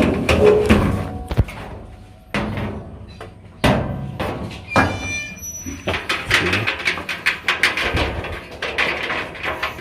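Knocks, thuds and clattering from the parts of a Speed Queen clothes dryer being handled during reassembly. Two sharp thuds come about two and a half and three and a half seconds in, a brief metallic ringing a little later, and busier clatter over the last few seconds.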